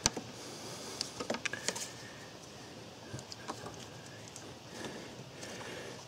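Faint scattered clicks and taps of a plastic pry tool working the throttle cable end off its linkage stud, with a few light clicks of the plastic fitting being handled.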